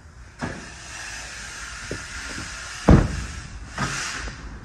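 A vehicle door shut with one heavy thump about three seconds in, with lighter knocks and handling noises before and after, over a steady hiss.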